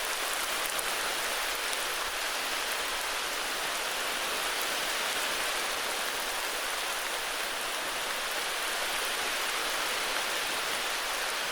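Heavy rain falling steadily, an even hiss of many drops with faint individual drip ticks.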